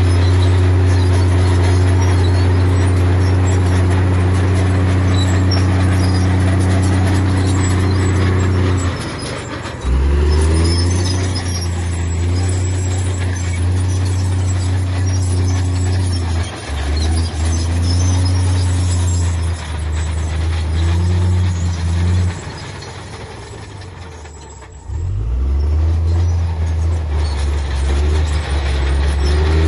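Heavy diesel engine of earthmoving machinery running under load with a deep, steady note. It drops away about nine seconds in and comes back hard a second later, dips briefly again, then eases off for a few seconds before picking up once more.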